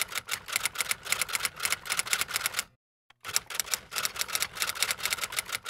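Typewriter sound effect: a fast run of sharp key clicks that stops for about half a second midway, then starts again.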